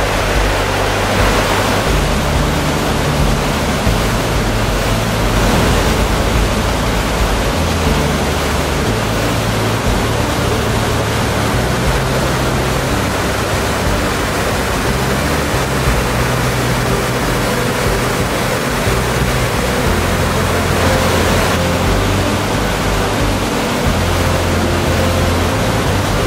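Loud, steady rush of whitewater as a river in spate pours down rocky rapids and over a waterfall.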